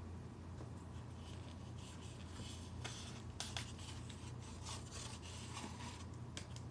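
A sharp knife cutting through a block of Velveeta cheese and scraping across a plate, with a few sharp taps of the blade, over a steady low hum.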